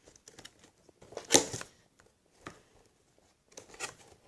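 Handling noises: light rustling and knocks as cardboard and squishy toys are moved about, with one louder sharp noise about a second and a half in.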